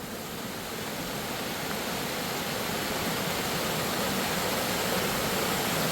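Underground waterfall in a mine: a steady rush of falling water, growing slowly louder.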